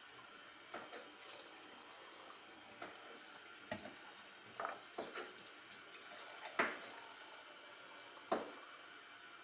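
Water running faintly as it is added to a cooking pot, with scattered light clicks and knocks. Two sharper knocks come in the second half.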